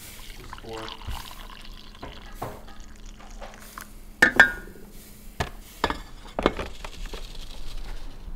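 Coffee poured from a glass carafe into a ceramic mug, followed by several clinks and knocks of the carafe and mug being handled, the loudest a ringing clink about four seconds in.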